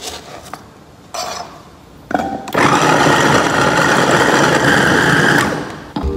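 A couple of cleaver chops on a plastic cutting board, then an electric food chopper with a glass bowl runs for about three seconds, its blades mincing shallots, and winds down near the end.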